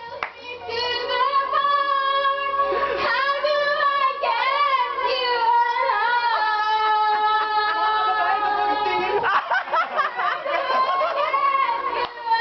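A woman singing loudly along to a karaoke backing track, holding long notes that waver with vibrato.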